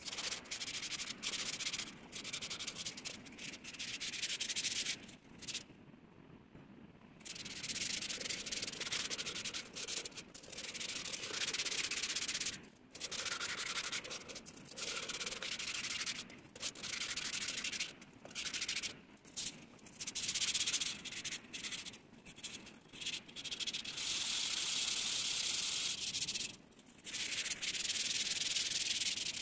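A brass bowl being sanded by hand with an abrasive pad: a hissing scrape in runs of quick strokes, broken by short pauses and a longer pause about six seconds in.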